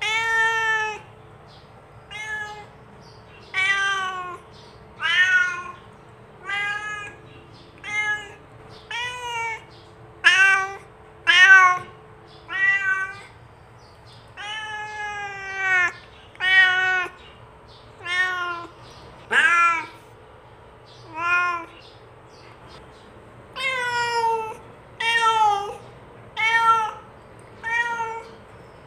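Domestic cat meowing over and over, about one meow a second, each call rising and falling in pitch. One longer, drawn-out meow comes about halfway through, followed shortly after by a brief pause before the meows resume.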